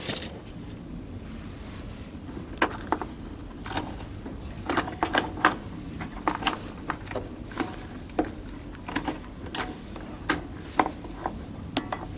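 Irregular sharp clicks and taps of plastic as fingers work a red control knob on a riding lawn mower's dash panel, with a faint steady high whine behind.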